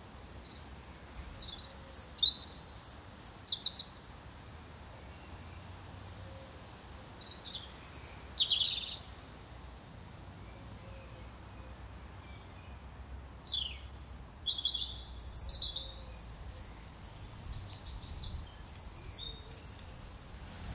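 European robin singing: short high phrases with pauses of a few seconds between them, then a longer run of rapid high notes near the end.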